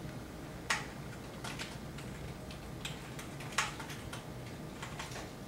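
Keys clicking on a computer keyboard as a short word is typed, in scattered keystrokes with two louder clicks, about a second in and about three and a half seconds in.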